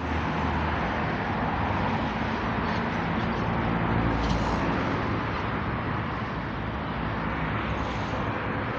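A steady engine drone with a low hum, under a constant rushing noise.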